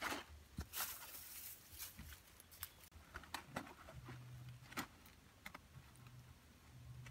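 Faint rustling and crackling of large dry leaves being stepped on and laid by hand, with scattered sharp clicks, busiest in the first two seconds.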